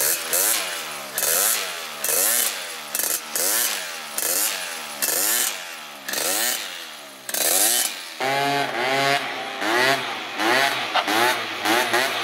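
Two-stroke engine of a Polini 72cc Honda Dio/Elite scooter with an Arrow exhaust, blipped at standstill over and over, each rev rising and falling about once a second. About eight seconds in it changes to the scooter being ridden, the engine pulsing in short surges.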